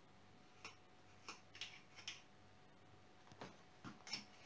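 Several faint, irregular light clicks of a spoon tapping against a jar as brown sugar is scooped out.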